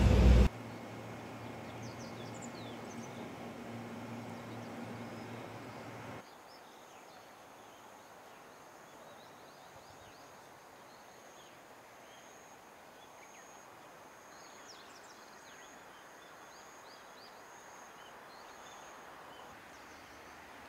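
Loud railcar engine noise cuts off half a second in. A quieter low steady hum follows and stops about six seconds in. Then comes faint outdoor ambience: scattered bird chirps and a steady high insect drone.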